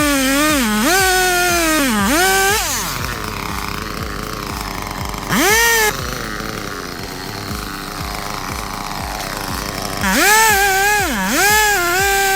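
Two-stroke chainsaw running at high revs, its pitch dipping again and again as it takes load. It drops back through the middle, revs briefly, and comes up to speed again about ten seconds in.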